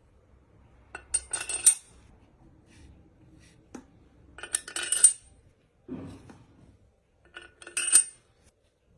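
Small loose metal parts clinking and rattling against each other in three short bursts, with a duller knock between the second and third.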